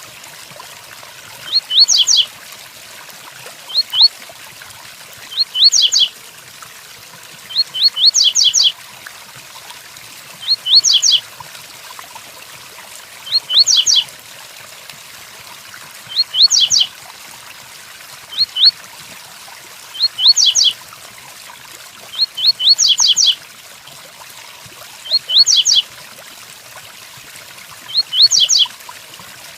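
Double-collared seedeater (coleiro) repeating its 'tui-tuí' song: short phrases of two to four quick rising whistled notes, about every two to three seconds, over a steady hiss of rain.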